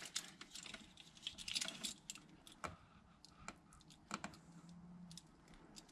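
Faint, irregular clicks and ticks of a hand-held wire stripper and wire being handled, as the insulation is stripped off an accessory power wire.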